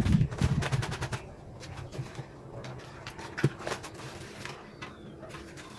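Crackling of a black plastic nursery bag and scraping of loose potting soil as soil is pressed in by hand, dense for about the first second, then scattered softer clicks with one sharp click about three and a half seconds in.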